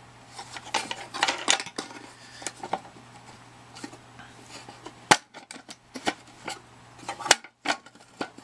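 Irregular metal clicks and clanks from handling the sheet-metal case of a Heathkit IM-13 vacuum tube voltmeter as it is being opened, with two sharper knocks about five and seven seconds in.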